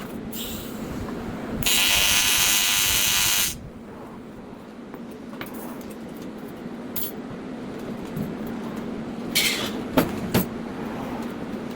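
AC TIG welding arc on aluminum buzzing for just under two seconds, over a steady low hum. Later come a short hiss and a few sharp clicks.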